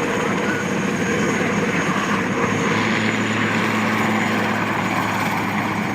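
Aérospatiale SA-330L Puma helicopter in flight: its turboshaft engines and rotor running steadily and loudly, with a thin high turbine whine over a low drone.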